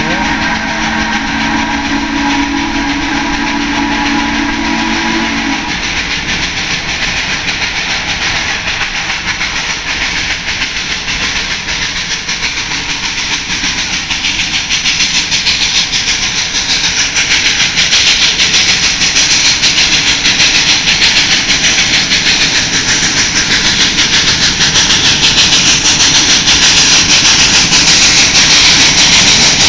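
Approach of No. 734, a 2-8-0 steam locomotive. Its whistle sounds one long chord for about the first five seconds. Then the sound of the working engine grows steadily louder as it comes closer.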